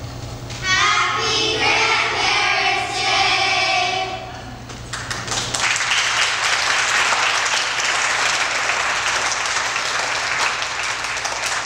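Children's choir sings a short phrase for about four seconds, then an audience applauds steadily.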